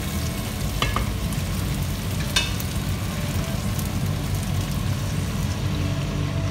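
Oxtail and vegetables sizzling in a hot frying pan while being stirred with a wooden spatula, with a few sharp knocks of the spatula against the pan about one and two and a half seconds in.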